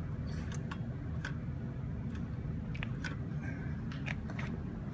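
Kawasaki Zephyr 1100's air-cooled inline-four running at a steady idle, with scattered light clicks and taps from a hand working the rear brake pedal.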